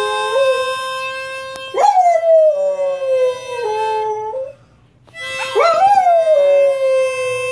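A dog howling along with a harmonica: the harmonica holds long chords while the dog's howls jump up and then slide slowly down in pitch, twice. Both drop out briefly just past the middle.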